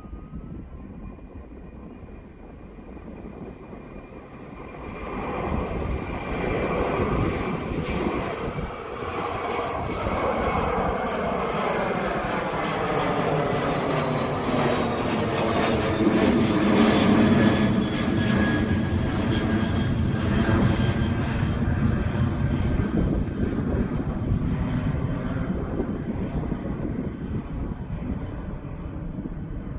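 Boeing 737-300 freighter's twin CFM56-3 turbofans at takeoff power, climbing out and passing overhead. The jet noise swells about five seconds in, is loudest around the middle, then slowly fades as the aircraft moves away, with a faint whine sliding down in pitch.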